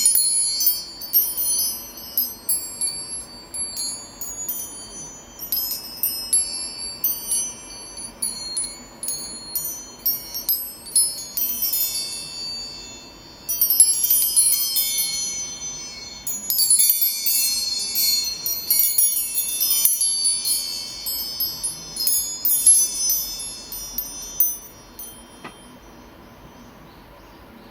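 Angel chime: a set of chimes rung again and again in waves of many overlapping high ringing tones, which die away a couple of seconds before the end.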